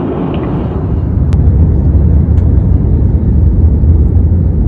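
Airliner cabin noise in flight: a steady low rumble of engines and airflow that grows louder about a second in, with a faint click or two.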